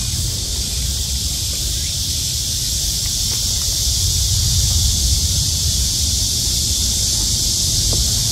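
A steady high-pitched insect chorus fills the air over a low rumble, with a few faint snaps as red chili peppers are picked off the plants.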